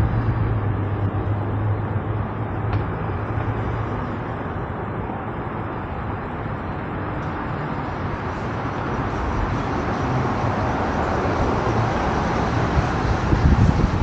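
Car and traffic noise picked up by a microphone on a car's roof, with a steady low engine hum for the first few seconds and the road noise growing louder near the end.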